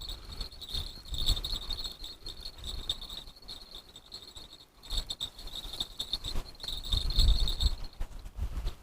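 Crickets chirping in a steady, fast-pulsing trill, with gusts of wind rumbling on the microphone, strongest about seven seconds in.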